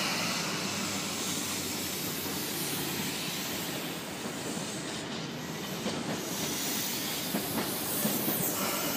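Sydney Trains S-set double-deck electric train running past on the adjacent track, a steady noise of steel wheels on the rails.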